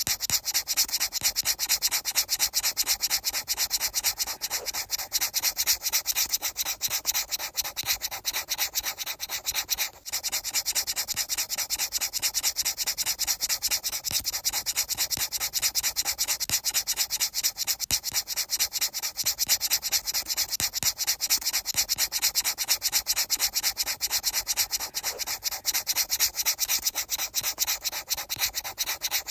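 Rapid, regular rubbing or scraping strokes, many a second, dry and scratchy, with a brief break about ten seconds in.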